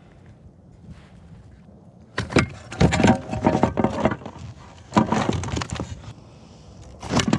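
Gear being handled aboard a fishing kayak: bursts of rapid clattering, rattling and knocking that start about two seconds in and come and go three times.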